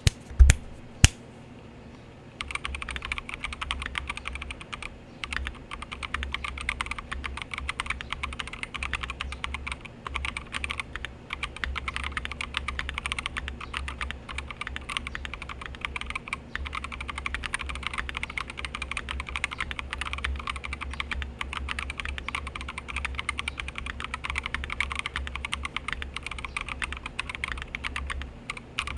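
Fast, continuous typing on a DZ60 60% mechanical keyboard with stock 62g Gazzew Blue Ice Thocc switches, PBT XDA-profile keycaps, a polycarbonate plate and a foam-filled aluminum Tofu60 case. Two sharp single clicks come first, and the rapid stream of keystrokes starts about two and a half seconds in.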